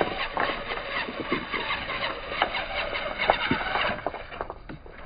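Small electric drive motors and gears of a 1/16-scale RC rock bouncer running under load as it crawls over beach cobbles, with frequent sharp clacks of stones and tyres knocking together. It goes briefly quieter near the end.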